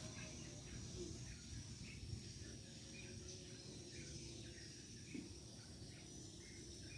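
Quiet outdoor ambience: a steady high insect drone with faint short bird chirps, over a low rumble.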